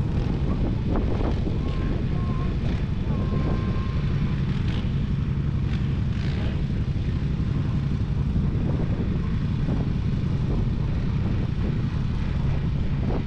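Several quad ATVs idling together in a line: a steady, unbroken low engine drone.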